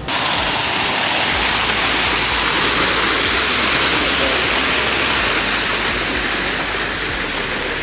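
Fountain jets splashing down into a shallow pool: a loud, steady rush of falling water that cuts in and out abruptly.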